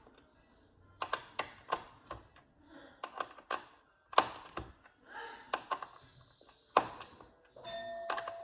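Irregular small clicks and taps of a screwdriver and metal parts while the retention screws on a Threadripper CPU socket are undone. A faint steady tone joins near the end.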